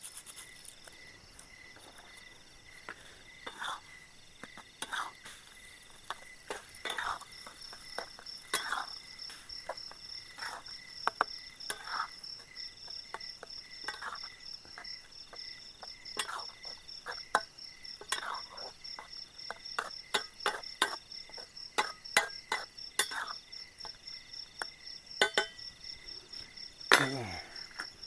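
Crickets chirring steadily in a night forest, with scattered clicks and short scrapes from a cooking pot and utensils at a campfire. Near the end a louder sound sweeps sharply downward in pitch.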